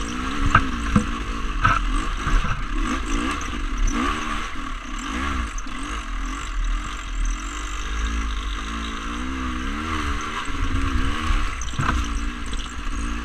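Dirt bike engine on a rough trail, its pitch rising and falling over and over as the throttle is opened and closed, with a few sharp knocks about half a second in, near two seconds in and near the end.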